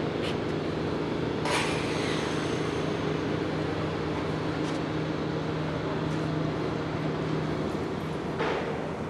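Steady low mechanical hum, with a brief click about a second and a half in and another near the end.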